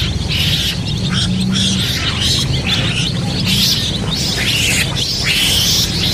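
A flock of baby chicks peeping continuously, many high chirps overlapping, with a steady low hum underneath.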